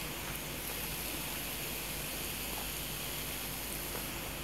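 Boneless chicken pieces in ghee and masala sizzling on a cast iron tawa, a steady hiss that holds even. The tawa keeps cooking on its own heat after the flame has been turned off.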